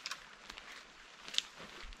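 Footsteps on a wet forest floor of twigs and needles: a few scattered crackles and snaps, with one sharper snap about a second and a half in, over a faint steady hiss.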